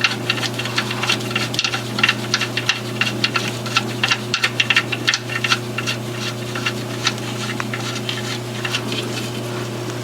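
Oil drain plug being threaded back into the oil pan by hand: quick, irregular light clicks and rattles over a steady low hum.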